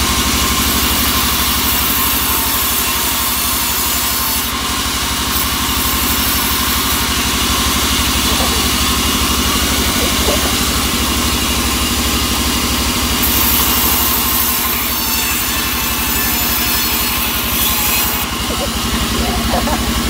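Band sawmill running with a steady low drone, its blade hissing as it rips albasia (sengon) boards. The hiss swells and eases in stretches as boards are fed through.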